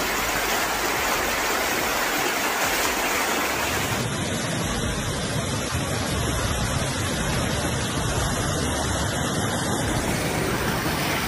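Fast-flowing floodwater rushing through a street, a steady loud rush of water, with an abrupt change in the sound about four seconds in where one recording gives way to another.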